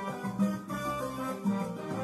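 Instrumental background music led by a plucked guitar.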